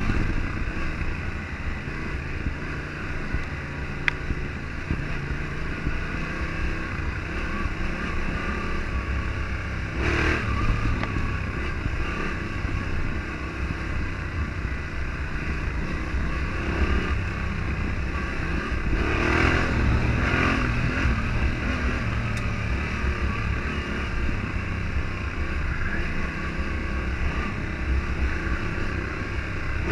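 Yamaha Ténéré 700's parallel-twin engine running steadily as the motorcycle is ridden along, with a couple of brief louder swells about ten and twenty seconds in.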